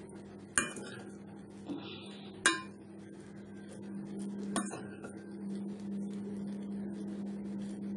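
A perforated spatula stirring fried rice in a stainless steel pan: soft scraping, with three sharp clinks of the spatula against the pan about two seconds apart. A steady low hum runs underneath.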